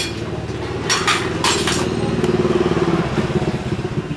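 A small engine running steadily with a fast, even pulse, a little louder and higher about two to three seconds in. Sharp clicks come about a second in and again half a second later.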